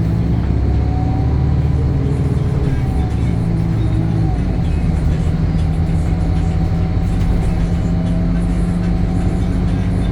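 Temsa Avenue LF 12 city bus with its DAF Euro 5 diesel engine and ZF gearbox running under way: a steady low engine drone with a thin whine above it that drifts a little in pitch. The engine note changes about four seconds in.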